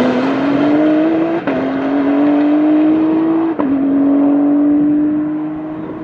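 Honda NSX GT3 Evo22's 3.5-litre twin-turbo V6 accelerating hard, its note rising through the revs with two quick upshifts, about a second and a half and three and a half seconds in. The sound fades near the end as the car pulls away.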